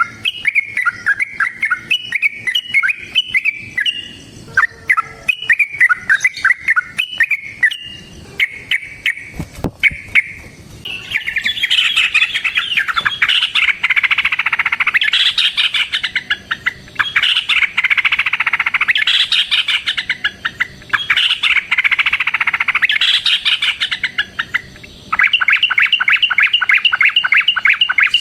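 Yellow-vented bulbul (trucukan) singing loudly. At first it gives short, varied chirping phrases. About ten seconds in it breaks into long, rapid-fire trills in runs of two to three seconds each, ending on a fast rattling series of notes.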